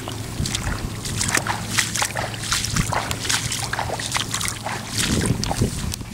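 Footsteps wading through shallow water and wet grass: an irregular run of small splashes and sloshes.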